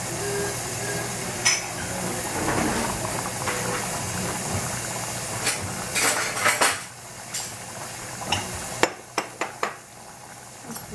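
Small glass jars clinking as they are set down on a stovetop, in a cluster of sharp clinks about six seconds in and a few more near the end, over a steady hiss.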